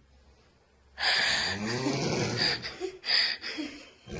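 A sleeping person snoring loudly with rasping breaths. The first long snore starts about a second in, followed by shorter snorts.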